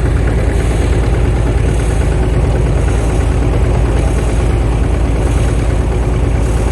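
Old tractor engine idling steadily, loud and close, with an even, rapid beat.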